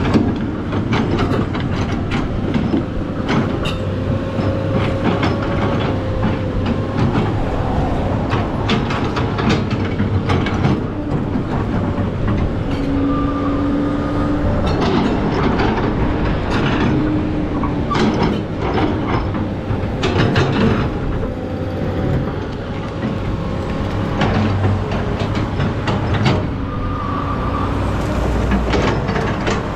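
SANY SY215C hydraulic excavator at work: its diesel engine runs steadily while metal clanks and knocks come again and again, with short whining tones from the hydraulics now and then.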